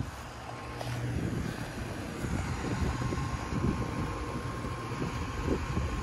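Several outdoor central air-conditioner condensing units running at once: condenser fans blowing and compressors giving a steady low hum.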